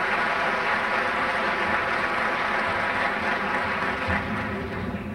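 Audience applause in a theatre, a dense even clatter of clapping that dies away near the end.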